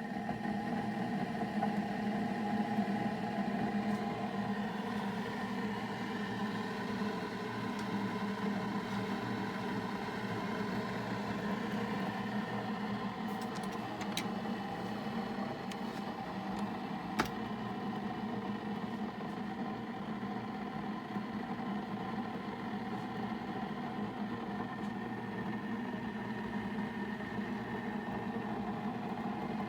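Keurig K-Classic coffee maker brewing, its pump running with a steady whirring hum, with a couple of faint clicks partway through.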